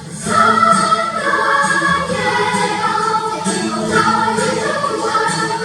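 Children's choir singing, many voices together in a continuous, full-voiced passage.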